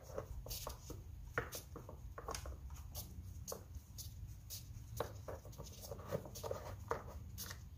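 Faint, irregular small clicks and scrapes of a 10 mm socket turned by hand, threading a nut onto a stud of the engine cover.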